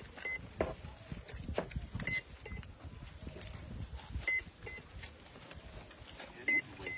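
Short electronic beeps in pairs, repeating about every two seconds, over faint low rumbling.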